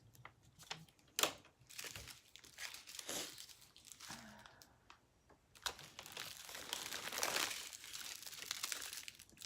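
Small plastic bags of diamond painting beads crinkling as they are handled and counted: scattered sharp crinkles in the first half, then continuous crinkling from about halfway until just before the end.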